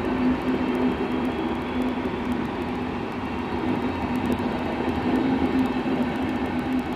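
Red regional passenger coaches rolling along the platform, a steady running noise of the train with a constant low hum.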